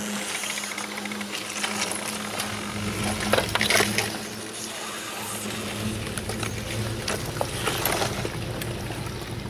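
Broken slabs of lake ice cracking, clinking and grinding as they are pushed against the ice edge, loudest about three and a half seconds in and again near the end. Under it, the steady low hum of the icebreaker's engine.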